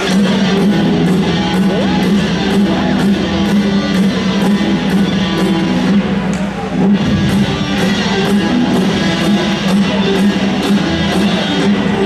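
Rock music with electric guitar and a steady drum beat, played over an ice hockey arena's sound system during a stoppage in play.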